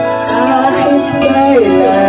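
Love-song ballad backing track playing, with a man singing the melody into a handheld microphone.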